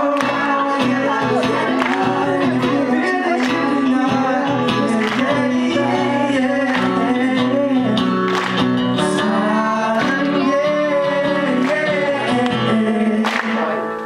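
Live male vocals through a handheld microphone and PA, accompanied by an acoustic guitar.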